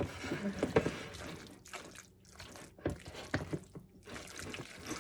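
A spoon stirring a wet, creamy mix of cottage cheese, sour cream and chicken broth in a bowl: wet squelching with irregular clicks.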